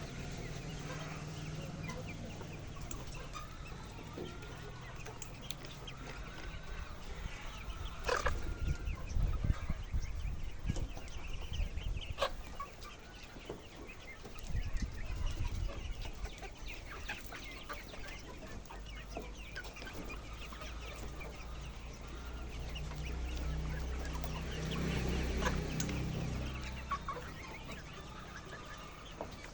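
A flock of chickens clucking and calling throughout, with a few sharp clicks and spells of low rumble underneath.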